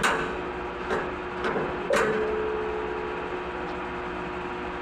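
A few sharp metal knocks against the car's front-end bodywork, at the start and about one, one and a half and two seconds in. The last one leaves a short ringing tone. A steady workshop hum runs underneath.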